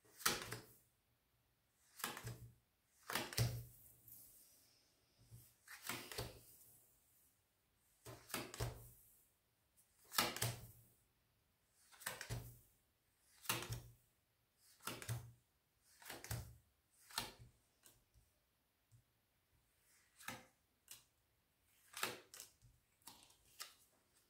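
Lenormand cards being dealt one at a time onto a wooden tabletop, a short tap as each card lands, roughly every one to two seconds.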